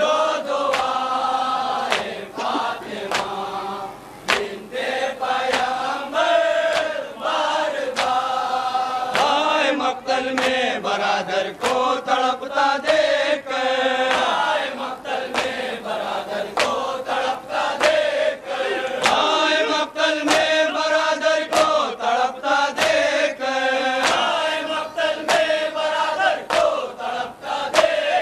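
A group of men chanting a nauha, a Muharram lament, in chorus, with sharp slaps of matam (chest-beating) sounding through the chant.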